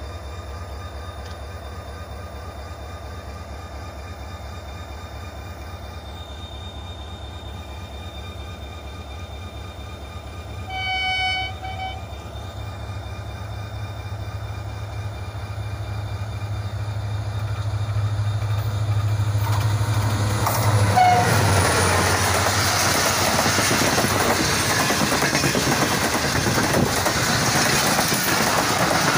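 Passenger express hauled by a diesel locomotive, approaching and passing at speed. A steady low hum comes first, then the locomotive's horn sounds once for about a second. From about two-thirds of the way in, the train passes close by, growing loud with wheels clattering over the rail joints.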